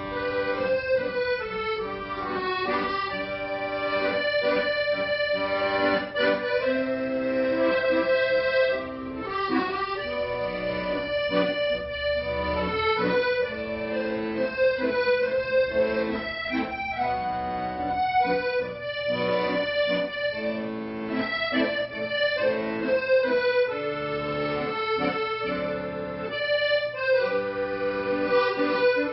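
Accordion playing a melody over held chords.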